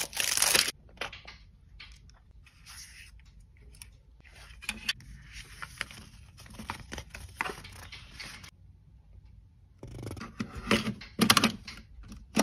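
Plastic shrink-wrap being torn and crinkled off a cassette case, loudest in the first second, followed by light paper rustling as the folded cassette insert is handled. Near the end, a cluster of plastic clicks and knocks as a cassette is handled in a portable cassette player.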